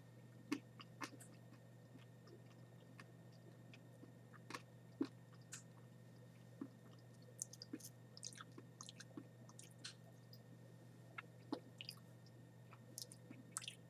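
Faint, scattered dry crackles and clicks of someone chewing a boiled-and-dehydrated red palm weevil larva (sago worm), over a low steady hum.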